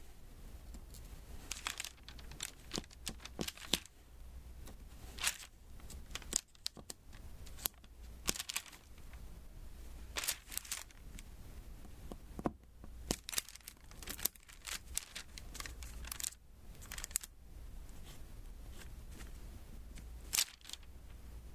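Close-miked diamond painting: small resin beads tapped and pressed onto the sticky adhesive canvas, giving irregular sharp clicks and short sticky crackles.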